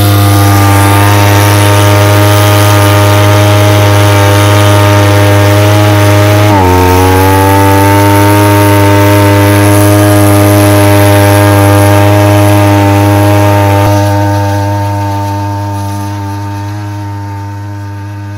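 Backpack power duster's two-stroke engine running at high throttle, blowing fertilizer out through its long discharge tube. A little over six seconds in its pitch drops sharply and climbs back up, and from about fourteen seconds it fades as it moves away.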